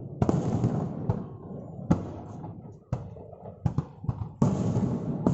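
Aerial firework shells bursting in quick succession, about five sudden booms, each trailing off in a rumble, with a few sharper cracks between three and four seconds in.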